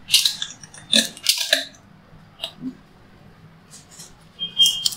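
Plastic foil film crackling in several short bursts as the gold foil roll's carrier film separates from a printed sheet leaving a roll-to-roll thermal laminator, over a faint steady low hum from the machine.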